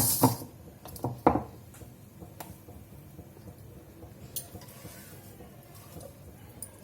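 Kitchen vessels knocking and clattering as ground urad dal and rice batter is transferred from one vessel into another, with three sharp knocks in the first second and a half, then only faint scrapes and light taps.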